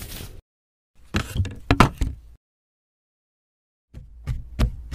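Knocking on a wooden door: a short run of sharp knocks about a second in, then another run of knocks starting near the end.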